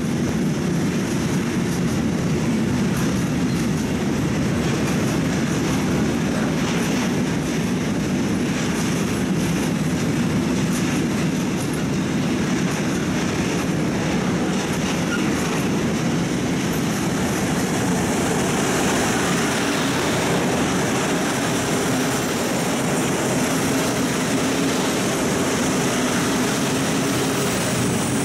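Passenger train running through the station with a steady rumble of wheels on rails and faint clicks of wheels over rail joints.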